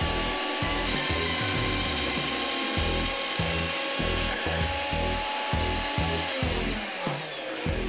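Vertical band saw running, its blade cutting through a steel plate pushed through by hand, over background music with a steady beat.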